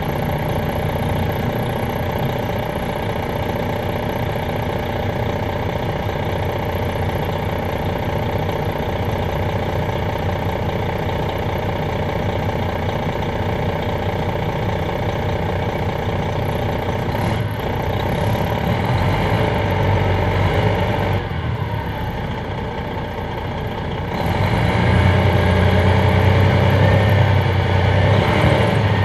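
The Detroit Diesel Series 60 diesel of a 2001 MCI D4000 coach idling with a steady running note. About three-quarters of the way in, the low rumble grows louder and stays up.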